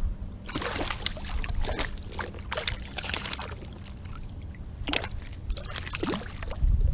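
Irregular splashes and sloshing of water at the side of a kayak as a hooked speckled trout is brought in, over a low steady rumble.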